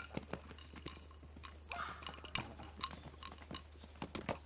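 Saddled horses' hooves knocking and shuffling on dry dirt in irregular clops, with a short breathy noise about two seconds in.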